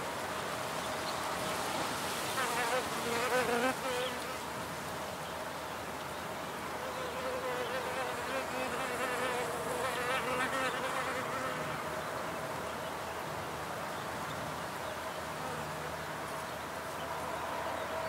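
Wild bees buzzing in flight, a steady hum whose pitch wavers as individual bees fly close past the microphone, loudest a couple of seconds in and again about halfway through.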